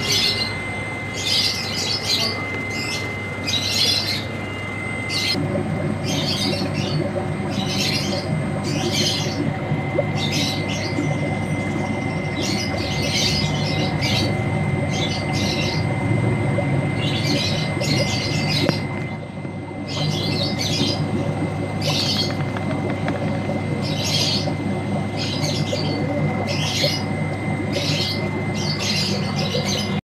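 Birds chirping in short, high-pitched bursts about every second, over a steady low hum and a thin constant high tone.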